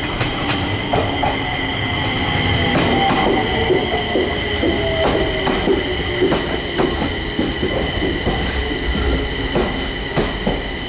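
Enshu Railway electric train pulling into the station, its wheels clicking over rail joints with a steady high squeal from the wheels on the curve. Beneath it a whine falls slowly in pitch as the train slows, and the squeal stops near the end.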